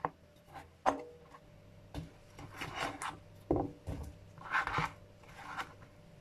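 Kitchen knife cutting squash on a plastic cutting board: a few sharp knocks of the blade striking the board, with longer scraping sounds in between as the blade works through the flesh and moves the pieces.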